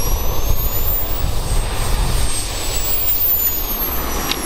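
Microjet turbine engine on an RC car running with a loud high-pitched whine over a low roar. The whine's pitch rises for about the first two seconds and then falls away.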